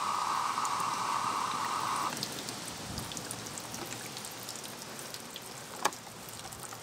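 Water overflowing from an RV fresh-water tank fill inlet and pattering onto the ground, the sign that the tank is full. A louder rushing for about the first two seconds, then a steady splash with small drips.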